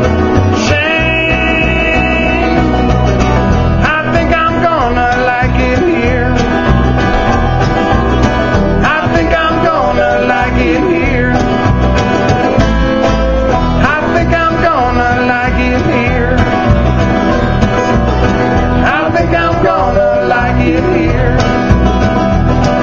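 Live bluegrass band playing: acoustic guitar, mandolin and banjo picking together over a steady low bass line.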